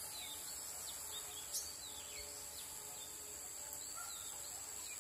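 Bird chirping repeatedly in short rising-and-falling notes over a steady high insect drone, with one sharp click about a second and a half in.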